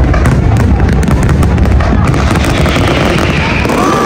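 Large fireworks display: rapid crackling bursts and booms over a continuous deep rumble.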